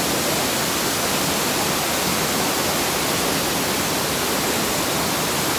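Steady rushing of a waterfall, loud and unbroken.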